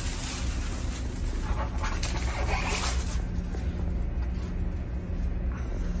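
Cabin noise inside a Haramain high-speed train carriage: a steady low rumble, with a hissing burst in the first three seconds.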